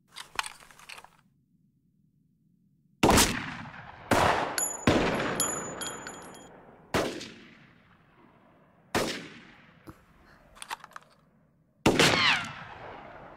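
Rifle target practice: a few small clicks, then six single shots from a scoped rifle fired at irregular intervals one to three seconds apart. Each shot has a long fading echo. A brief, high metallic ringing follows the third shot.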